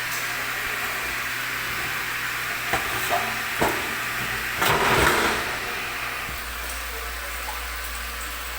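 Water purification system's pump running with water rushing through it, a steady hiss over a low hum. A louder rush of water noise comes about five seconds in, and the low hum changes a second later.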